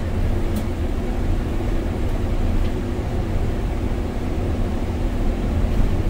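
Cabin noise of a MAN Lion's City city bus on the move, its biogas engine and tyres on snow making a steady low rumble. There is a brief click about half a second in.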